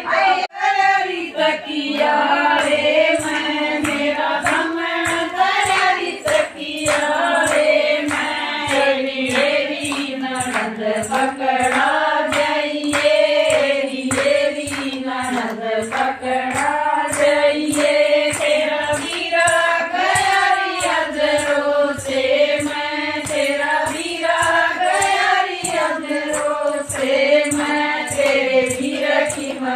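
Group of women singing a folk song together in unison, with a steady beat of hand clapping.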